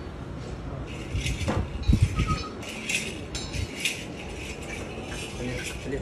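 Metallic clinking and rattling, with a few heavy low thumps about two seconds in.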